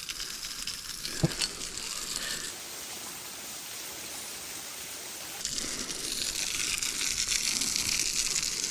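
Rushing water of a waterfall, a steady hiss that grows louder about five seconds in, with one sharp click about a second in.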